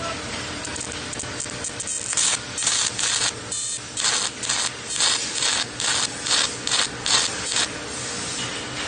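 Steady machine hum, joined about two seconds in by a run of short, loud hissing bursts, roughly two a second, that stop shortly before the end.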